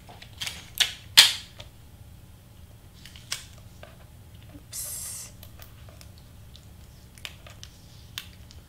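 Sharp clicks and taps of tape and cardstock being handled while the edges of a large cardstock piece are taped down. There are several clicks in the first two seconds, one short rustle about five seconds in, and a few light ticks after that.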